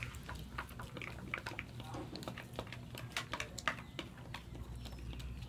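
Chopsticks clicking and scraping against thin plastic bowls while noodles are slurped and chewed: a scatter of small, irregular clicks.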